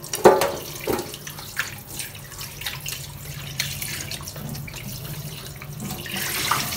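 Tap water running into a stainless steel kitchen sink while whole raw fish are rinsed by hand, with irregular splashing and one loud knock shortly after the start. The water gets louder near the end.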